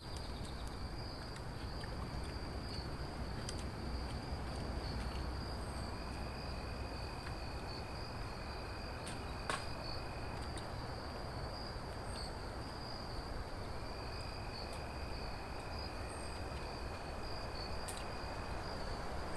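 Insects chirring in a steady high drone, with a second fainter tone that comes and goes, over a low steady rumble of outdoor ambience and a few light clicks.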